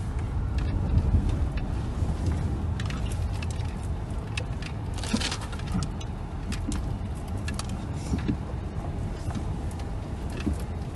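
Subaru driving off-road through deep snow, heard from inside the car: a steady low rumble from the engine and drivetrain, with scattered clicks and knocks as the car rides over the rough snow, and a brief scraping noise about five seconds in.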